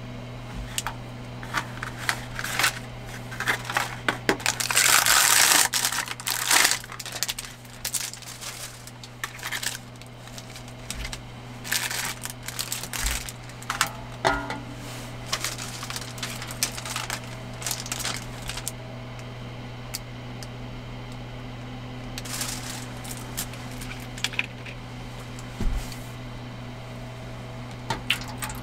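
Plastic packaging crinkling and tearing, and a thin aluminium noodle bowl clicking as it is handled, as a foil-pot instant noodle kit is unwrapped and emptied. The loudest rustle comes about five seconds in, and all of it sits over a steady low hum. Water starts pouring into the foil bowl at the very end.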